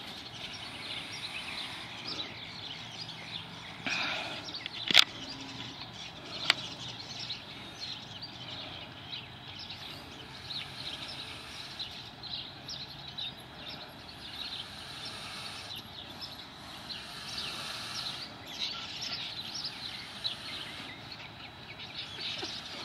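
Outdoor ambience of many short, high chirps from small birds and insects, with a sharp click about five seconds in and another a second and a half later.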